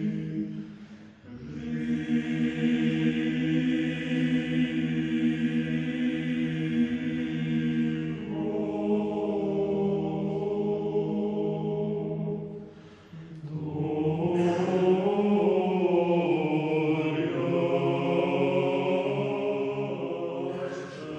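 Choral chant: voices singing long held notes in slow phrases, with short breaks about a second in and about thirteen seconds in.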